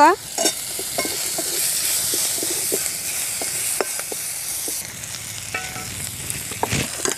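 Sliced onion, crushed garlic and green chillies sizzling in hot mustard oil in a kadai, with a metal spatula scraping and clicking against the pan as they are stirred. The sizzle eases a little after about five seconds.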